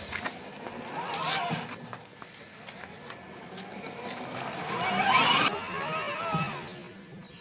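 12V electric kids' ride-on jeep (WN-1166) driving over a bumpy dirt yard, its plastic wheels crunching on grit with scattered clicks and knocks. A voice calls out twice, loudest about five seconds in.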